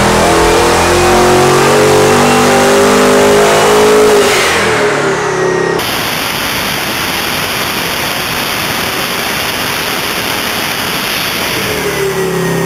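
Twin-turbocharged 427 small-block Chevy V8 on an engine dyno making a full-throttle pull, its pitch climbing for about four seconds. Then the revs fall away with a falling whistle. After that comes a steady, coarser engine noise with no clear pitch, and the engine's tone returns near the end.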